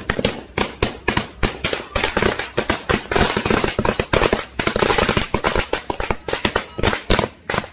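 Firecrackers going off in a rapid, continuous run of sharp bangs, several a second.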